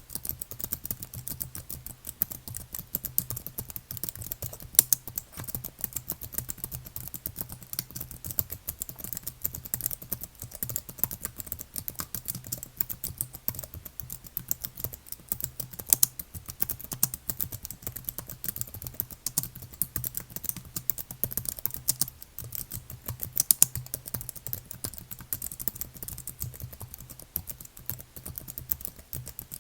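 Computer keyboard being typed on quickly and continuously: a dense run of key clicks with a few louder keystrokes now and then, over a faint steady low hum.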